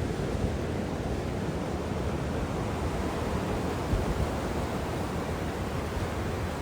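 Ocean surf washing steadily onto the beach, mixed with wind rumbling on the microphone.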